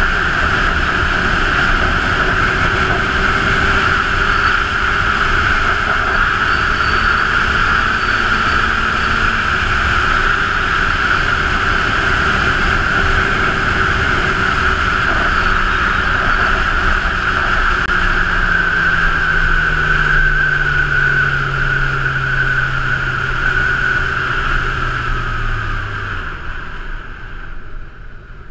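Honda CB1000R motorcycle's inline-four engine running at road speed under loud wind rush on the microphone. Over the last several seconds the engine note falls steadily and the wind noise drops as the bike slows down.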